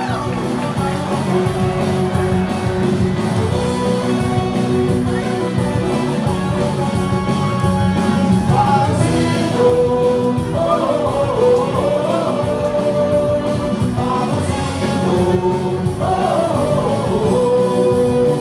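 Baseball stadium crowd singing and shouting a cheer, with long held air-horn tones at a few fixed pitches sounding over it.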